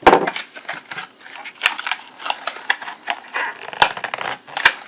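Plastic retail packaging being cut and pried open with a pocket knife blade: a rapid, irregular run of sharp clicks, cracks and crinkles from the plastic.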